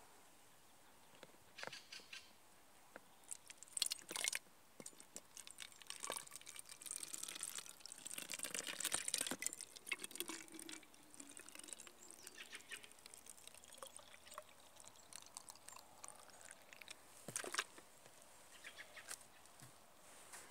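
Birch sap being poured from one plastic bottle into another, trickling and gurgling unevenly in spurts, with a few sharp plastic clicks.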